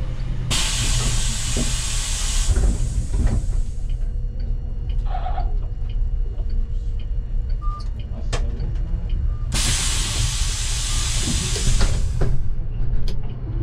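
City bus's compressed-air system venting in two long hisses of about two seconds each, the first near the start and the second about ten seconds in, over the steady low rumble of the running engine.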